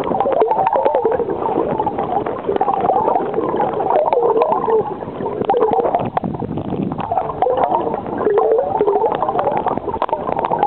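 Muffled gurgling and rushing of river water, heard from a camera held underwater, with small clicks and knocks throughout.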